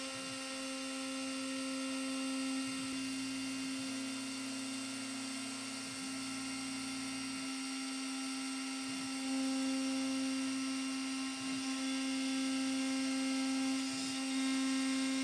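CNC mill spindle running with a steady high hum while a straight flank end mill cuts a Delrin gear blank. Short gliding tones come every second or two as the machine's axes step through the gear-cutting program.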